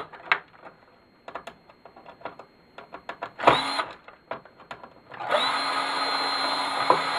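Small clicks and knocks of metal parts and screws being handled, then a power drill-driver whirring briefly about three and a half seconds in and again for about two seconds near the end, backing screws out of the turntable's chassis.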